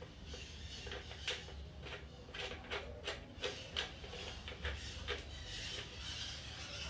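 A string of short, light clicks and scrapes, packed most closely together in the middle, as a plug is fitted into the unused sensor port of a red K&N Apollo conical air-filter housing.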